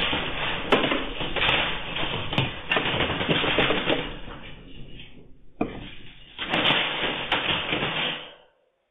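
Rattling and knocking of a room shaken by an earthquake tremor: a dense clatter full of clicks that eases about five seconds in, picks up again, and stops a little before the end.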